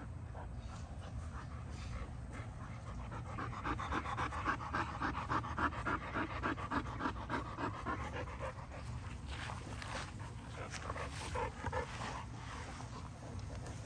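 A young American Bully panting close by in quick, even breaths, about four a second, strongest in the middle stretch.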